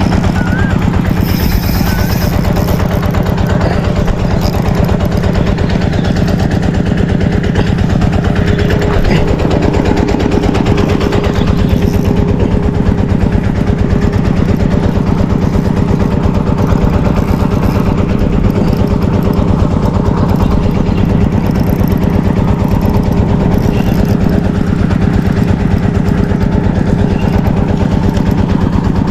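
A small engine running steadily at a constant speed, its rapid firing pulses even throughout.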